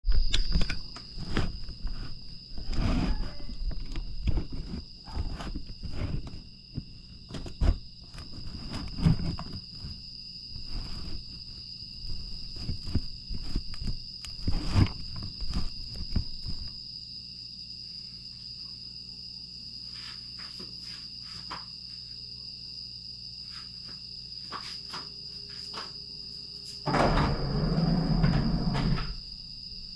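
Night insects such as crickets singing a steady high-pitched trill throughout. Irregular knocks and rustles fill roughly the first half. A louder rough rumble lasts about two seconds near the end.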